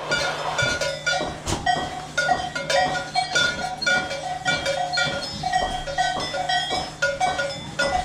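Background music: a melody of short notes in a quick, even rhythm, over a steady low hum.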